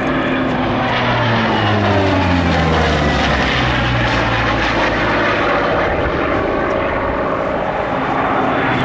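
Hawker Fury fighter flying past with its piston radial engine and propeller running loudly. The engine note drops in pitch over the first few seconds as the plane passes, then climbs again near the end.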